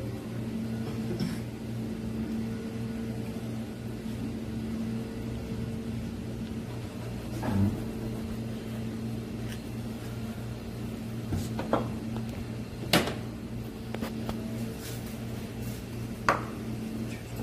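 Steady low hum of kitchen machinery, such as a ventilation fan or refrigeration unit, with a few sharp clicks and knocks of utensils and small dishes on the counter and cutting board.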